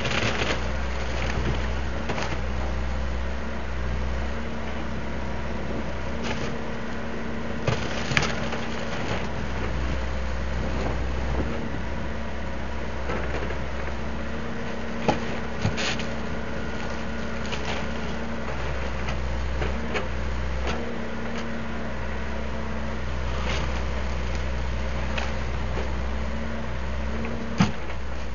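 Backhoe's diesel engine running steadily, with a few sharp knocks now and then.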